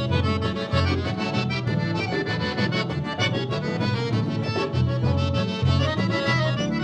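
Gaúcho vaneira band playing an instrumental passage led by accordion, over a bass line stepping between notes and a quick, steady dance rhythm.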